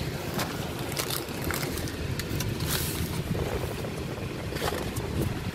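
Steady low rumble inside a car cabin, with scattered crinkles and clicks of a paper food wrapper being handled.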